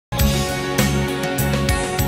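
Background music with a steady beat and sustained tones, starting abruptly just after the opening.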